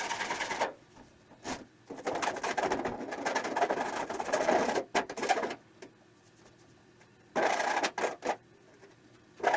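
Hand file rasping back and forth across the cut edge of a steel piece, deburring it so it is not sharp. The filing comes in several stretches, stopping abruptly for short silent gaps about two seconds in, around five to seven seconds in, and again near the end.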